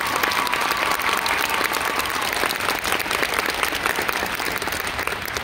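Audience applauding steadily in dense, fast clapping, with a high held cry from the crowd fading out over the first couple of seconds.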